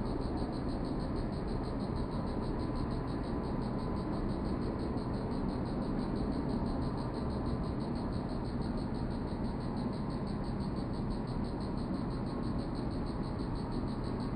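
Front-loader garbage truck's diesel engine running steadily while its arms lift a dumpster over the cab and tip it into the hopper. Insects trill over it in a fast, steady, high pulse.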